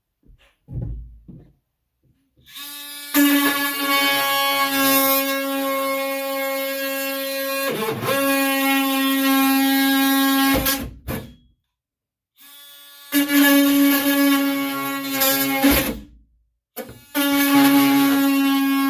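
A power tool running in three long bursts, a steady high-pitched hum that starts and stops abruptly, dipping briefly in pitch about eight seconds in; a few light knocks come before it.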